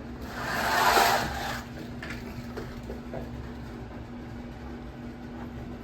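Window blinds being worked, a rushing rattle lasting about a second and a half that swells and then dies away.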